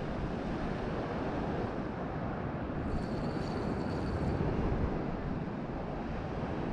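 Wind buffeting the microphone over sea surf, a steady rumbling noise. About three seconds in, a faint high whir lasts just over a second.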